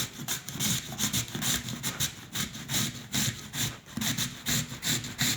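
A turnip being grated by hand on a grater: quick, even scraping strokes, about three a second, that stop abruptly at the end.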